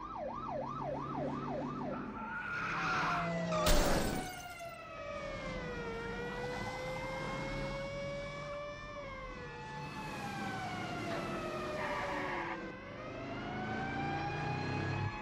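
Police car sirens: a fast warbling yelp for the first two seconds, then several slower wailing sirens gliding down and up, with car engines running underneath. A single loud bang about four seconds in is the loudest sound.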